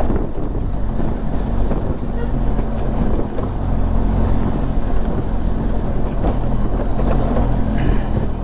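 A vehicle's engine running at a steady note while it is driven along.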